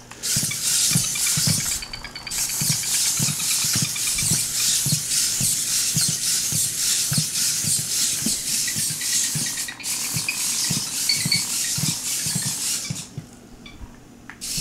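Lynxmotion hexapod robot's hobby servos whirring with a steady high buzz as it walks, its feet knocking softly about twice a second. The noise stops about a second and a half before the end.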